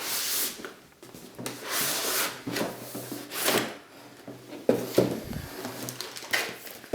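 Cardboard packaging sliding and rubbing as an inner box is pulled out by its pull tab: a few scraping swishes, then a couple of light knocks about five seconds in.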